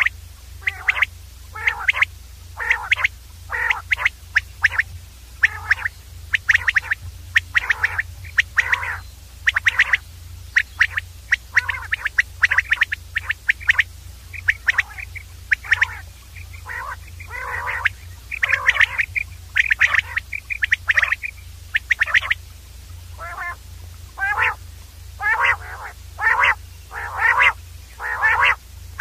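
Common quail calling: a rapid series of short calls in bunches, with only brief gaps between them, over a steady low hum.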